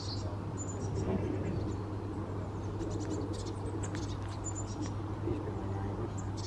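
Lakeside outdoor ambience: small birds chirping now and then over a steady low hum.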